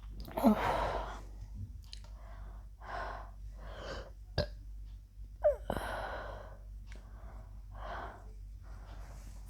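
A woman breathing hard in and out, roughly one breath a second, while drinking a large bottle of fizzy Pepsi for a burp challenge.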